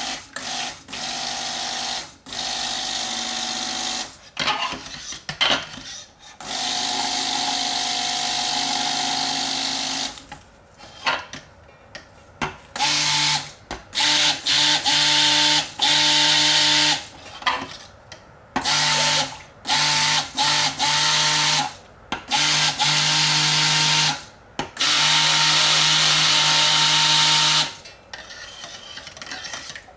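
Stick blender mixing oils and lye solution for liquid soap, brought toward trace. It runs as a steady motor hum in repeated bursts, switched on and off many times, with runs of a few seconds early on and shorter, quicker bursts later.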